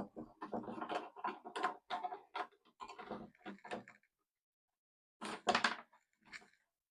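Handling noise: irregular scraping and knocks as electrical cable is fed into plastic conduit and a conduit box, with a louder cluster of knocks about five and a half seconds in.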